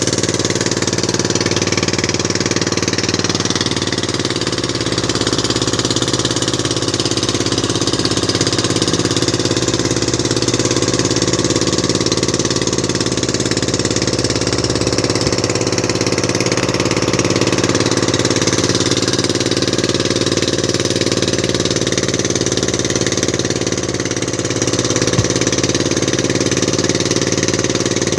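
Outrigger fishing boat's engine running steadily: a loud, even drone that holds unchanged throughout.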